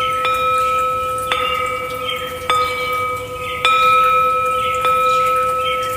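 Meditation music: a bell-like tone struck about once a second, five times, each strike ringing on steadily into the next.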